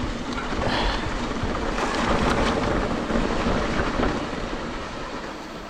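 Wind buffeting the microphone and mountain bike tyres rolling over a dirt trail on a downhill, with scattered rattles and clicks from the bike. The noise eases off near the end as the bike slows.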